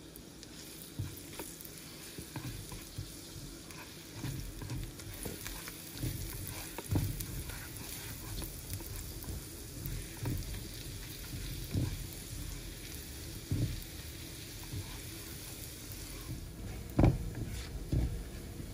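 Minced garlic sizzling gently in a nonstick pan over low-medium heat, stirred with a silicone spatula that scrapes and knocks against the pan now and then, the loudest knocks near the end.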